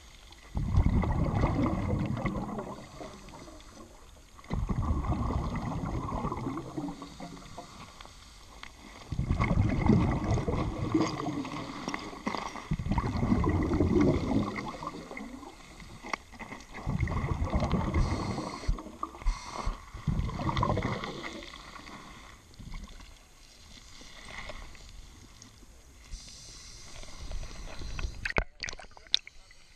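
Exhaled air bubbling from a scuba regulator underwater, in long bursts about every four seconds, one for each breath. Near the end come a few sharp clicks and splashes as the camera reaches the surface.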